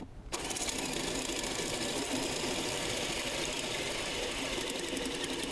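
Power drill with a hole saw cutting into a PVC pipe. It stops briefly at the start, starts again about a third of a second in, then runs steadily, grinding through the plastic.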